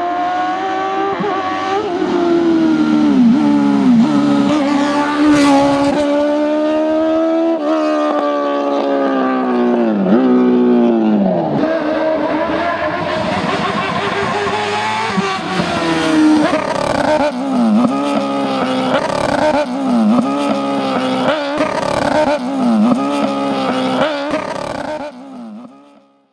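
Hillclimb race car engine under hard acceleration, revs climbing and then dropping sharply again and again with each gear change, before dying away near the end.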